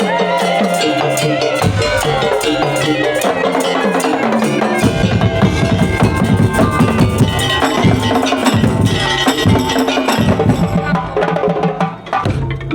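Madurese daul (tongtong) ensemble playing: drums and wooden percussion under a melody line. The low drums get heavier about five seconds in, and the music dips briefly near the end.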